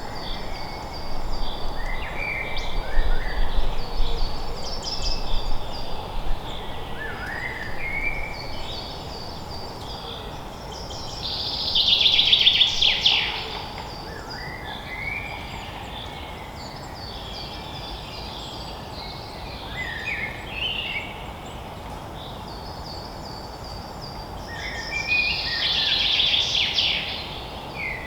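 Several wild birds singing and chirping in a forest, the loudest song coming about twelve seconds in and again near the end, over a steady background hiss.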